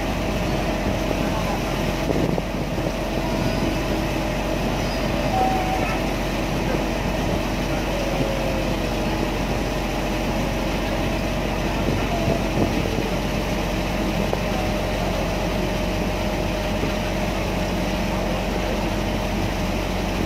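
A river car ferry's engine running steadily as the ferry moves along, a constant even hum with no change in speed.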